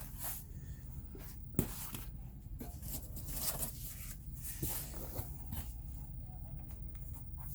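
Paper and canvas prints rustling as they are handled and leafed through, with one sharp tap about one and a half seconds in.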